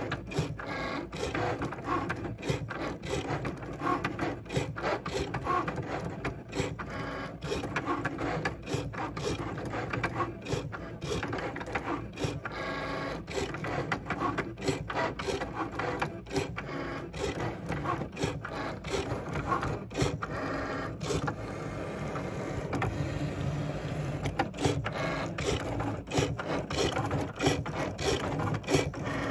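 Cricut Maker cutting machine running a cut: the tool carriage's motors whirring in short changing runs as the head moves along its rail, with frequent sharp irregular clicks, while the blade cuts a design out of card.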